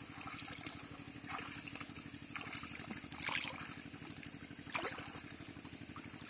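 Shallow water splashing and sloshing about four times as a person wades and reaches into it, over a small engine running steadily in the background.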